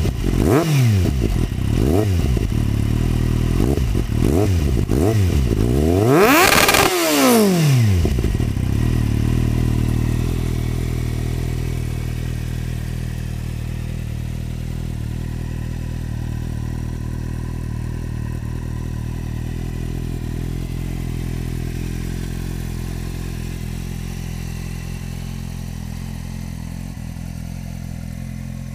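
2008 Kawasaki Z750's inline-four engine, breathing through a Remus Hexacone carbon aftermarket exhaust, revved in a run of quick throttle blips, the highest about seven seconds in. It then settles to a steady idle that grows slowly fainter.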